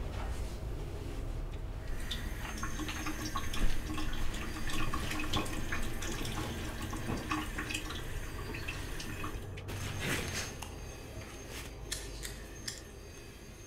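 Water from a sink tap with irregular splashes and drips as someone washes at the basin, starting about two seconds in.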